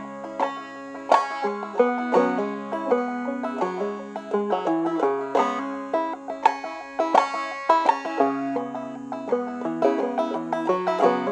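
Clawhammer banjo playing an old-time rhythm, with percussive clucks thrown in: sharp clicks on the offbeat, made by sweeping three fingernails diagonally down across the strings, giving a mandolin-chop feel.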